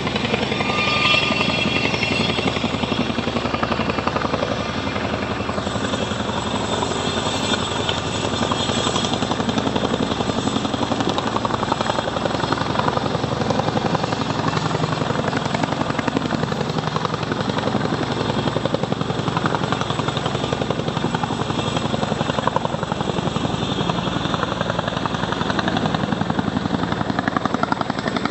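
Army helicopter running, its rotor blades beating in a rapid, steady, unbroken chop with engine noise, loud throughout.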